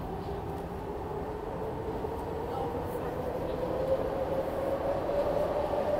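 Electric commuter train's traction motors whining, the tone rising steadily in pitch and getting louder as the train gathers speed, over a low rail rumble.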